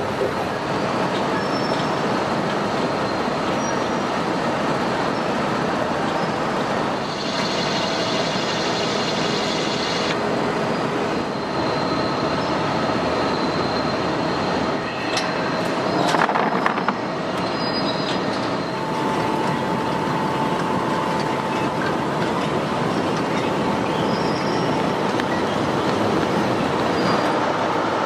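Potato sample washing and weighing machine running: a steady mechanical rattle of potatoes tumbling over its steel-rod conveyor, with faint metallic squealing tones coming and going and a brief louder clatter about halfway through.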